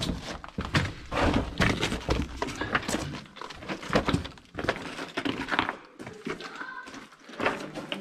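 Irregular knocks and scuffs of footsteps and scrambling over rock in a mine tunnel.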